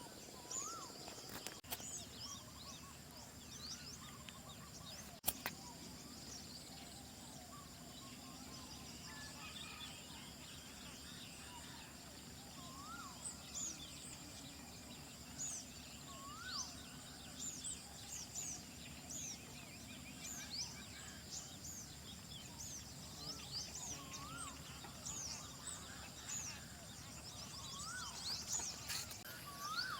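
Several birds calling at dawn: many short, high chirps, with one bird repeating a lower rising-and-falling whistle every few seconds, over a steady high insect hum. A single sharp click about five seconds in.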